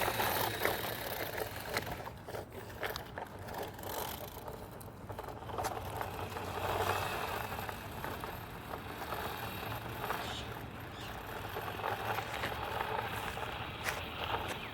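Small electric motor of a toy remote-control car running as it drives over rough off-road ground, with rattles, scrapes and scattered clicks from the wheels and body.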